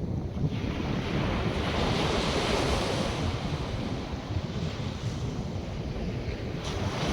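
North Sea surf washing onto the beach, a breaking wave swelling up about half a second in and fading out, with another surge near the end. Wind buffets the microphone throughout with a low rumble.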